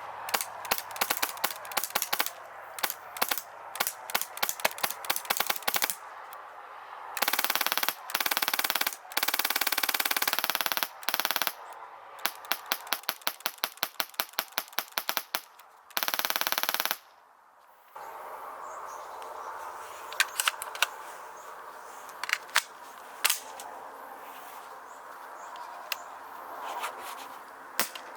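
Airsoft guns firing: strings of rapid single shots and several short full-auto bursts, the longest about a second and a half, then scattered single shots.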